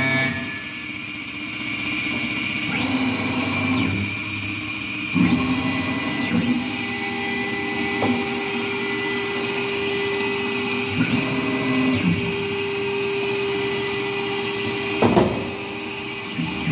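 Langmuir Systems MR-1 CNC gantry mill taking a light facing pass on an aluminum plate: the spindle turning an end mill at 8,000 RPM with a steady whine while the cutter runs along the part at high feed. The tone shifts a few times, about 3, 5 and 15 seconds in, as the tool changes direction.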